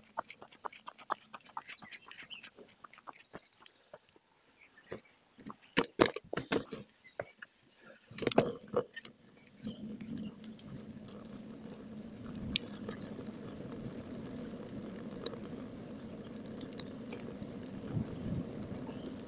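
Bicycle ride sped up to double speed: irregular clicking and rattling with a few loud knocks while the bike threads the barrier gates, then, about ten seconds in, a steady rush of wind and tyre noise as it rolls on along the path.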